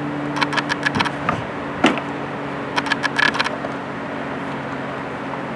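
Body clip removal pliers working a plastic body clip loose from a panel: two short runs of quick clicks and rattles, with a sharper snap about two seconds in, over a steady low hum.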